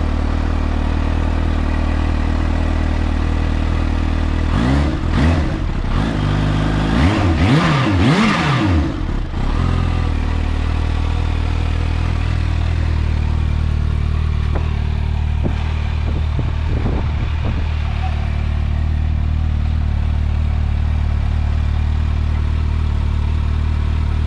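Kawasaki Ninja H2's supercharged inline-four engine idling steadily. Between about five and nine seconds in, the throttle is blipped several times, each rev rising and falling quickly, before it settles back to idle.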